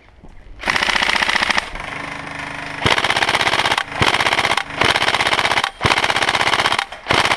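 Airsoft rifle firing on full auto in rapid repeated bursts, about six of them, each roughly a second long with short pauses between.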